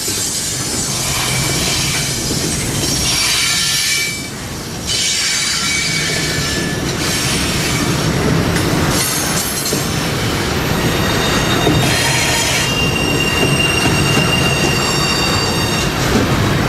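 A train rolling by, its wheels squealing in thin high tones that come and go over a steady rumble.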